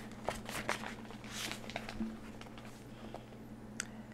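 Faint handling noise from a paper notebook being lifted and shifted: scattered light rustles and small taps of the pages, over a low steady hum.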